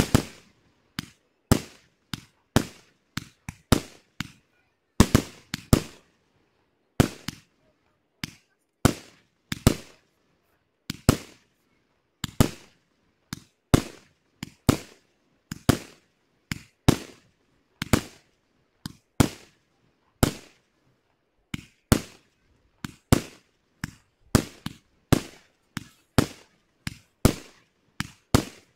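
Aerial fireworks bursting in a steady, uneven run of sharp bangs, about one or two a second, each trailing off briefly.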